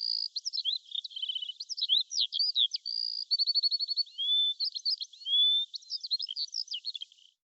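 A songbird singing a long, varied song of quick high notes, rapid trills and short whistles. The song stops near the end.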